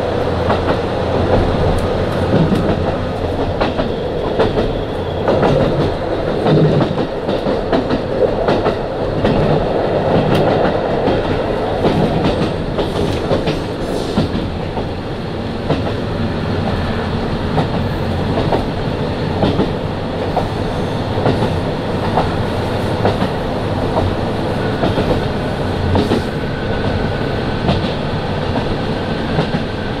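KiHa 40 diesel railcar running at speed, heard from inside the car: a steady low engine drone under the clicks of the wheels passing over rail joints.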